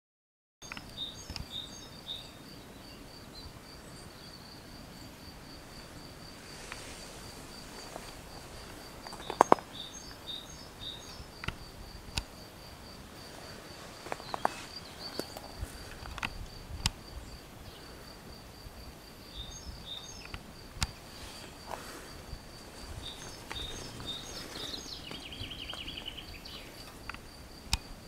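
Outdoor field ambience: an insect chirps steadily in a rapid, even pulse, with short bird calls now and then and two sharp clicks.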